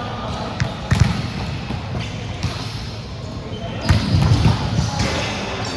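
A volleyball being struck during play: a few sharp slaps of hand or floor on the ball, the strongest about a second in and again near four seconds, in a large hall.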